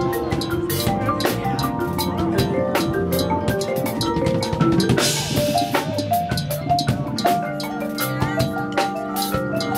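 Percussion front ensemble playing live: marimbas and other keyboard percussion sound running melodic lines over drum kit and bass drum strikes, with a cymbal crash about five seconds in.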